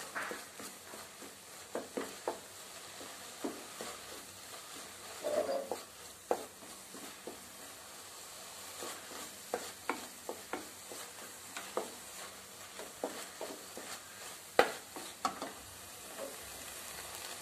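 Wooden slotted spatula stirring and scraping crumbly beef brain fry around a frying pan, over a steady sizzle as the last moisture cooks off. Scrapes and taps on the pan come irregularly, the sharpest one near the end.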